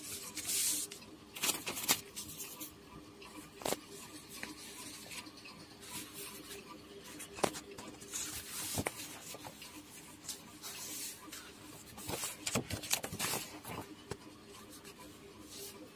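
Scattered light rustles and clicks of paper sheets being handled, over a faint steady hum.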